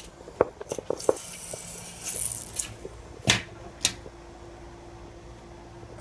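Clicks and knocks from handling a bow-front aquarium's glass while its seams are checked for flex, with a brief scrape about a second in and the loudest knock past the middle. A faint steady hum runs underneath.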